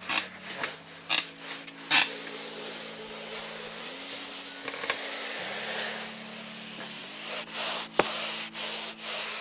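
A hand rubbing and smoothing canvas cloth down onto a contact-cemented surface: a steady rough brushing hiss, with sharper, louder strokes about two seconds in and again near the end.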